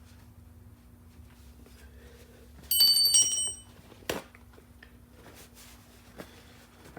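A short, loud bell-like ring of several clear high tones about three seconds in, dying away within a second, followed by a sharp click a second later and a fainter one near the end.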